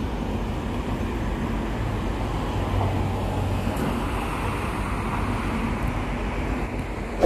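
Steady outdoor city traffic noise, an even wash of road vehicles with no single vehicle standing out, and one sharp click near the end.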